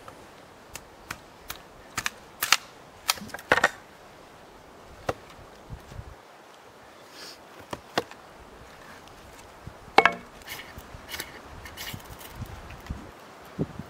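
Hatchet splitting kindling on a wooden chopping stump: irregular sharp wooden knocks and cracks as the blade is driven into the log and pieces split off. The loudest knock comes about ten seconds in.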